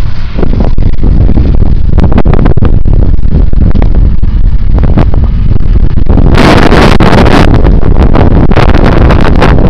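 Strong wind buffeting the microphone, loud and rumbling, over tractor and baler machinery working in a silage field. A harsher gust hits about six seconds in.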